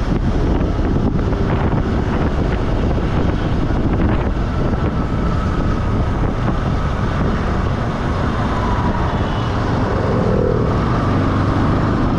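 A vehicle travelling along a road: a steady rumble of road and engine noise, with wind buffeting the microphone and traffic going by.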